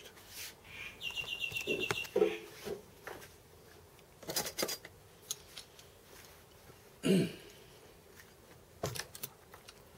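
Light metal clicks and taps of an Allen key and a steel square being handled against the aluminium parts of a home-built milling machine tail stand while its bolts are adjusted. A louder knock comes about seven seconds in.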